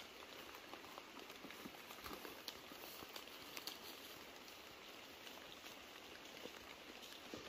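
Very faint outdoor ambience: a soft steady hiss with scattered light ticks and crackles.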